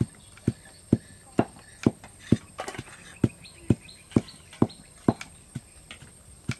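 Stone pestle pounding sliced lemongrass and garlic in a heavy stone mortar for a curry paste, a steady knock a little over twice a second.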